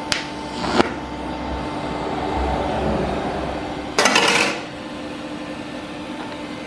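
DC TIG welding arc run off a stick welder, burning with a low hiss on steel plate. About four seconds in the arc breaks off with a short loud burst of hiss, and only a steady machine hum remains.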